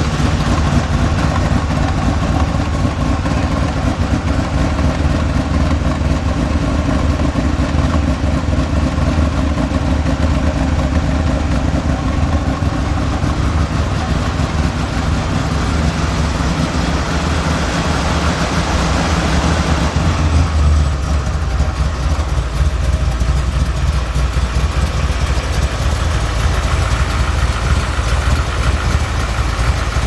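Carbureted Chevy 350 small-block V8 of a 1974 Corvette Stingray idling steadily. About 20 seconds in, the low sound of the engine shifts.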